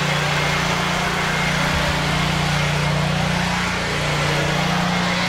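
A steady mechanical drone, like a motor running, with a constant low hum under a noisy wash.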